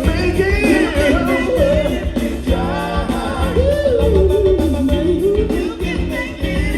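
Live funk band playing at full volume: a sliding, bending lead vocal line over a steady bass groove and drums.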